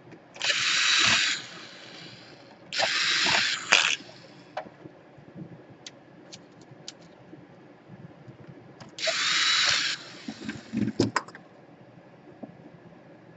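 Small electric screwdriver driving laptop case screws in three short bursts of about a second each, with light clicks and knocks of the screws and tool between them.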